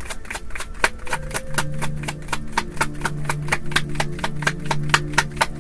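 A deck of tarot cards being shuffled by hand, the cards clicking in a quick, even rhythm of about five or six a second. Low sustained tones come in underneath about a second in.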